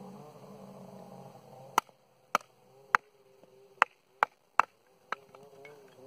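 A wooden baton strikes the spine of a small hatchet multi-tool seven times, driving its blade into a knotty piece of firewood to split kindling. The sharp knocks start about two seconds in and come at uneven intervals over a faint wavering drone.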